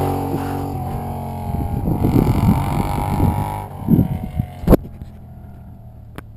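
Motorcycle engine fading as the bike rides away up the road, with wind gusting on the microphone in the middle. A sharp click a little under five seconds in, and a fainter one near the end.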